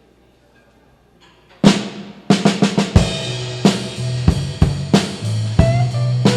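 Live blues band starting a slow blues: quiet for over a second, then a loud drum-and-cymbal hit and a quick drum fill lead in, and the band comes in with bass and electric guitar under a steady drum beat.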